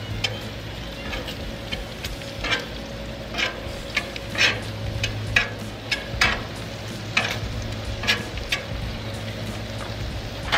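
Bacon and smash burger patties sizzling steadily on a Blackstone steel flat-top griddle. Metal tongs click and scrape against the griddle about once a second as the bacon strips are turned.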